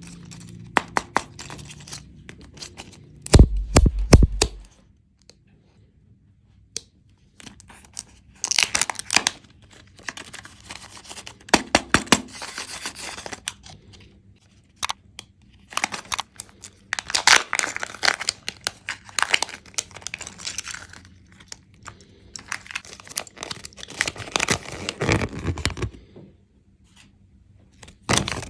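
Kinder Joy egg wrappers being torn open and crinkled by hand, in bursts separated by short pauses. About three and a half seconds in there is a loud low thump.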